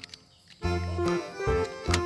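Upbeat children's background music with a bass line and steady beat, pausing briefly and coming back in about half a second in.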